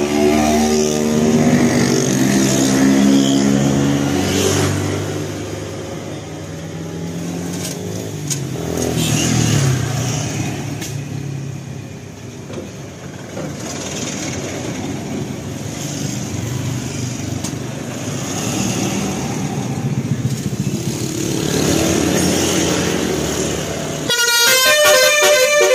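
Road traffic passing, with vehicle engines going by, loudest in the first few seconds. Near the end a vehicle horn honks.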